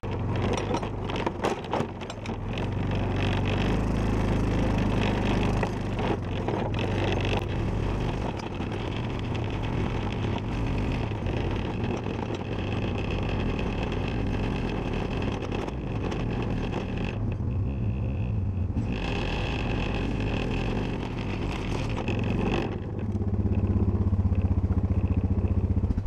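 ATV engine running steadily as the quad is driven back up a hill. It dips briefly about two-thirds of the way through and grows louder near the end.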